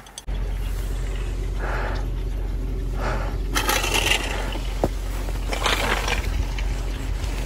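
Wind buffeting the phone's microphone as a steady low rumble that starts abruptly just after the beginning, with several irregular crunching scrapes in snow on top.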